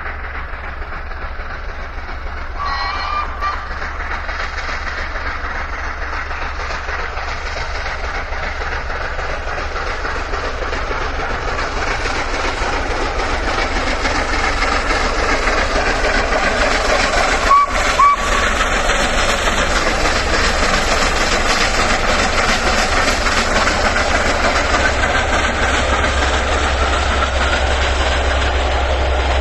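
LNER A3 Flying Scotsman steam locomotive working a train of coaches past, its exhaust and the running of the train growing steadily louder as it comes closer. Two short high tones cut through, one about three seconds in and a louder one just past halfway.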